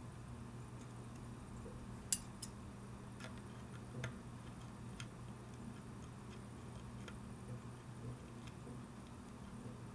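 Faint, irregular metallic clicks of steel tweezers touching a watch balance wheel and its hairspring: about half a dozen scattered ticks, the sharpest about two seconds in. A low steady hum runs underneath.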